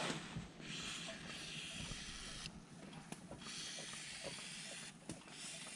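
Aerosol chain lube hissing as it is sprayed onto a motorcycle's drive chain, in three spurts: two of about two seconds with a short break between, then a brief one near the end.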